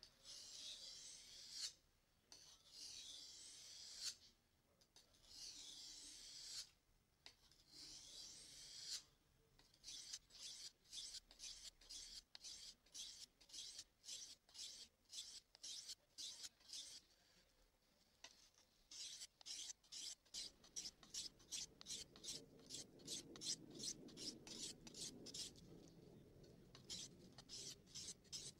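A steel knife blade being stroked along a wet 400-grit water stone, a faint scraping. First come a few long, slow strokes, then quick short strokes, two or three a second.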